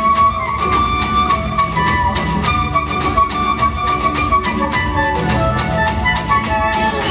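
Side-blown flute playing a melody of long held notes, changing pitch about five seconds in, over a backing track with bass and a steady beat.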